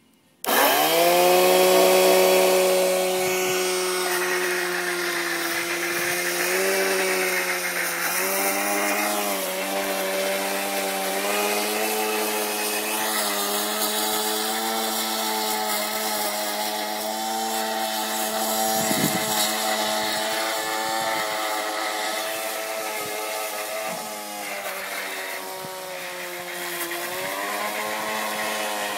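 Homemade battery-powered robot lawn mower running with its cutter on: an electric motor spins up about half a second in, then runs with a steady whine. The pitch sags briefly a few times, and more deeply near the end, before rising again.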